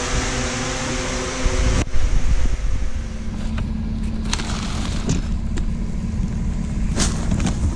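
A steady fan-like hiss cuts off sharply about two seconds in. It gives way to a low rumble and a steady hum, with a few light clicks and knocks.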